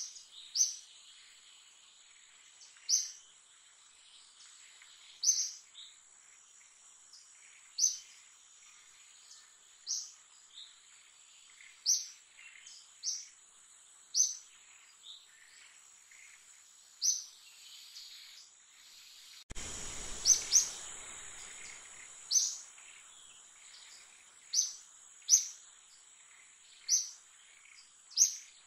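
Forest ambience: a bird repeating a short, high chirp about every two seconds over a steady, high-pitched insect drone. About two-thirds of the way through, a burst of low, rushing noise lasts about two seconds.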